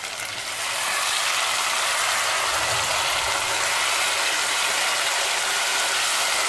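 Thick chicken gravy sizzling and spattering steadily in hot ghee and oil as it is stirred with a wooden spatula. The sizzle comes up about half a second in. The masala has cooked down until the fat separates out, the sign that it is done.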